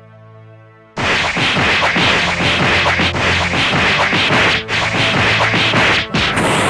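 A soft musical sting ends about a second in and gives way abruptly to a loud, rapid barrage of cartoon punch sound effects: dense whacks and whooshes of a flurry of blows, running for about five seconds.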